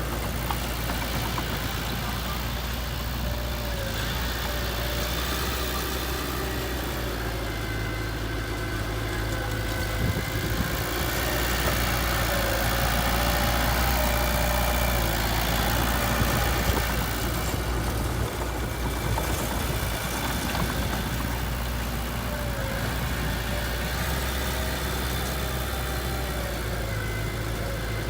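Diesel engine of a heavy construction machine running steadily at a low, even pitch, growing louder for several seconds in the middle before settling back to idle.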